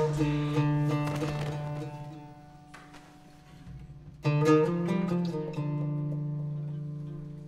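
Soundtrack music on acoustic guitar. Chords ring and slowly fade, and a fresh chord is struck about four seconds in and left to ring.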